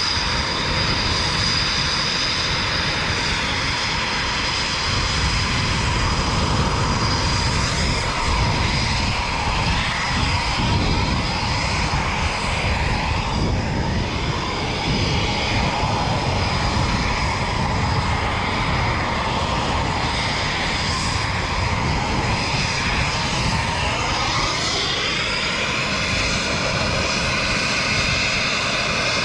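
Military jet aircraft engines running close by: a steady roar with a high whine, and the whine rises in pitch about three-quarters of the way through as the power changes.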